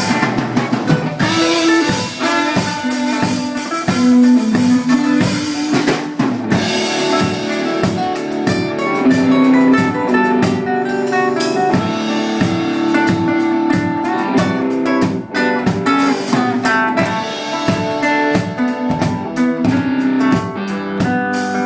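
Live band music: drum kit and guitars playing a steady beat.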